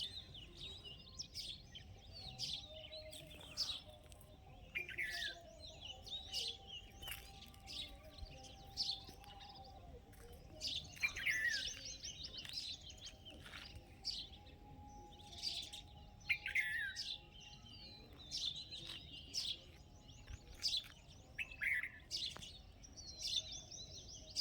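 Small songbirds chirping and twittering: a steady stream of short, sharp calls with quick trilled runs, busiest around the middle.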